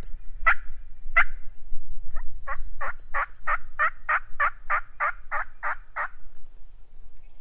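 Hen turkey yelps from a hunter's turkey call: three spaced yelps, then a quicker run of about a dozen yelps at roughly three a second, stopping about six seconds in.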